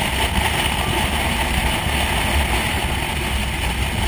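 Motorcycle cruising on an open road: a steady rumble of engine and road noise with a constant rushing haze.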